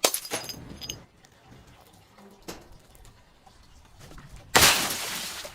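Glass bottles breaking: a sharp smash at the start with shards ringing and tinkling for about a second, a few small clinks, then a second, louder crash near the end that trails off.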